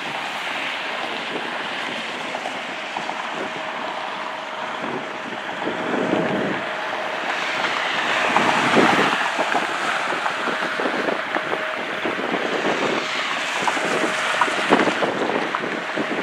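Wind on the microphone and cars swishing past on the road, with the distant jet noise of a CRJ regional jet rolling along the runway and a thin steady tone through most of it.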